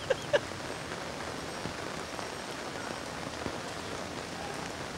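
Heavy rain falling steadily on a flooded street, a constant hiss of drops hitting standing water. A brief sharp sound cuts in right at the start.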